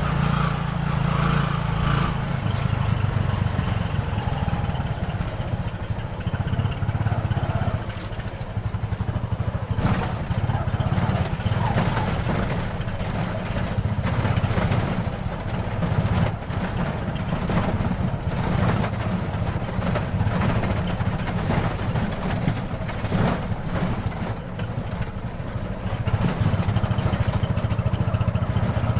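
Motorela's motorcycle engine running steadily while the vehicle is under way, with frequent knocks and rattles as it jolts over a rough road.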